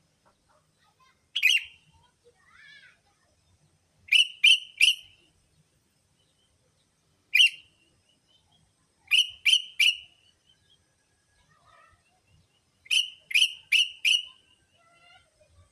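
Sooty-headed bulbul (kutilang) calling: short, sharp notes in clusters of one, three, or four, repeated every few seconds, with fainter softer notes in between. This is a lure call used to draw in wild bulbuls.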